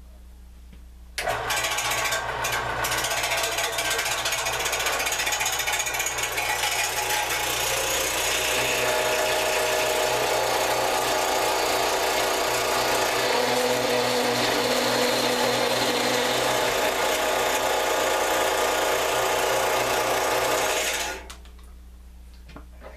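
Central Machinery 4x6 horizontal metal-cutting band saw switched on about a second in, its blade running steadily through 1/2-inch steel stock dry, without cutting oil. It stops about two seconds before the end as the cut finishes.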